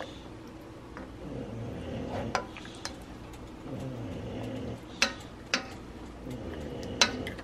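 A plastic spoon stirring a pot of whole red snapper simmering in coconut milk in a stainless steel pot, with about five sharp knocks of the spoon against the pot; the loudest come about five and seven seconds in.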